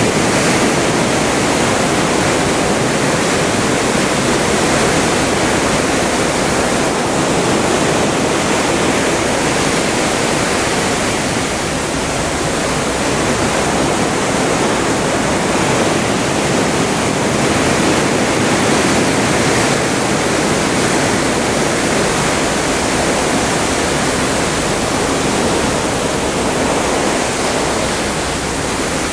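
Atlantic seawater rushing along a moving ship, a loud steady rush that swells and eases a little now and then.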